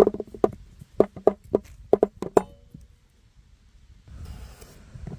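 A quick series of about ten knocks or taps on a hard object, each with a short ring, over the first two and a half seconds, then a brief faint hiss about four seconds in.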